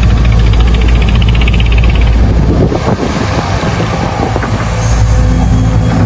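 Heavy diesel engines of an excavator and dump truck running loud and steady. About three seconds in the engine note dips briefly and scraping and knocking come through, then the steady engine sound returns.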